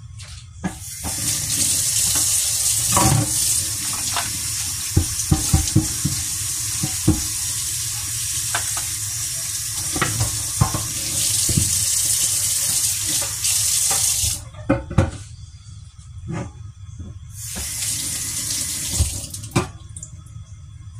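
Kitchen tap running into a stainless-steel sink while something is rinsed under it, with scattered clinks and knocks. The water shuts off about two-thirds of the way through, then runs again briefly a few seconds later.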